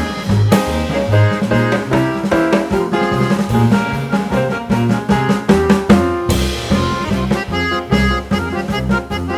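Background music with a steady drum beat and bass, with keyboard and instrument melody lines.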